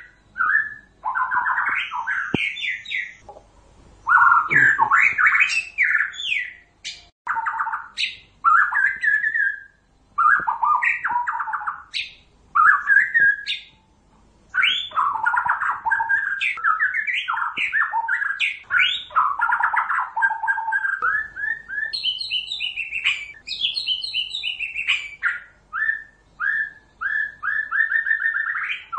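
White-rumped shama (murai batu, Pasaman type) singing a long, varied song of loud whistled phrases and rapid note runs with brief pauses. About three quarters of the way through it climbs to higher notes, then finishes with a run of quick repeated notes, about three a second.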